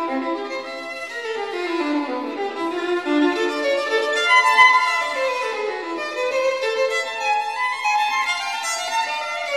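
Background music: a solo violin melody playing runs of notes that climb and fall.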